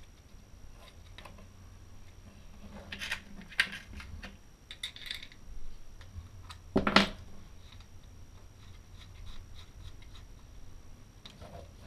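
Small clicks, taps and scrapes of hands fitting an accessory onto a Dremel 3000 rotary tool, with its motor switched off, and one louder knock about seven seconds in. A faint steady low hum runs underneath.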